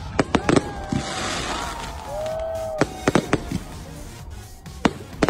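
Fireworks display: a scattered run of sharp bangs and cracks from bursting shells, with a stretch of crackling about a second in and a brief whistle-like tone about two seconds in.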